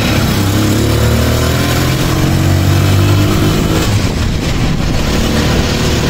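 Motor scooter engine running as it is ridden along, its pitch rising over the first couple of seconds and easing off about four seconds in.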